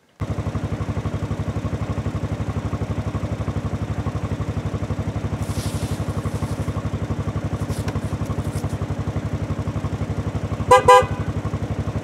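Ford F-150 pickup engine idling with a steady, even pulse. Its horn gives two short toots about a second before the end.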